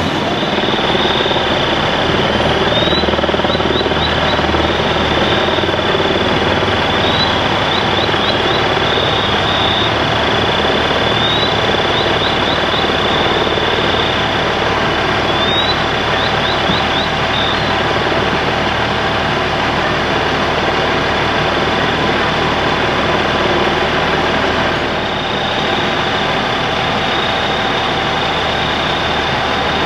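Fire engine's diesel engine and pump running steadily at a working fire, a loud constant noise with a thin high whine over it. In the first half, a short rising chirp followed by a few quick ticks repeats about every four seconds.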